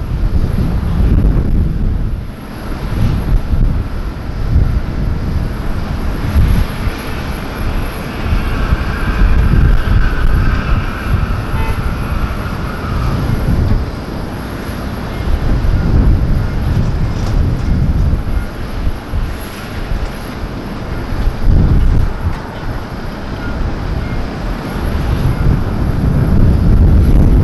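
Jet airliner's engines on landing approach: a deep rumbling roar that swells and eases in waves, with a fainter whine about a third of the way through.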